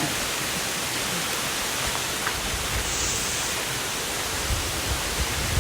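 Steady rushing of water from a small waterfall.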